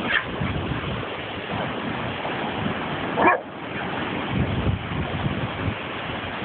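Boxer dog giving two short barks, a brief one at the start and a louder one about three seconds in, over steady wind noise on the microphone.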